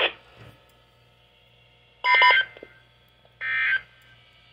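NOAA Weather Radio sending its SAME end-of-message data bursts through a receiver's speaker: two short, harsh electronic buzzes about a second and a half apart, the first about two seconds in. They mark the end of the Required Weekly Test.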